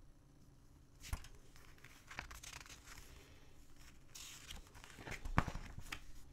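A paper instruction booklet being handled and opened: a few short rustles and light knocks of paper, the loudest about five seconds in as the pages are turned open.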